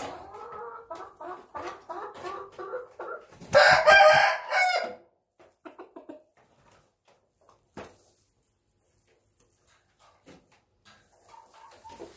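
Chickens clucking in short repeated calls, then a loud crow about a second and a half long, followed by a quiet stretch with a few faint taps of pecking and soft clucks returning near the end.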